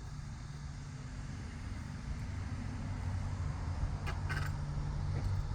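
A steady low mechanical rumble, growing a little louder partway through, with a few light clicks about four seconds in.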